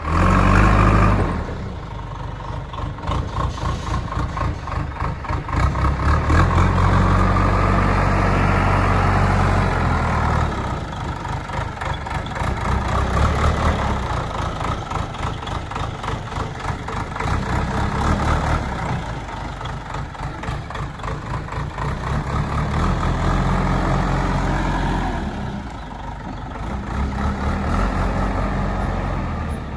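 JCB 3DX backhoe loader's diesel engine running with a steady rapid pulse, revving up and easing off several times as the machine works.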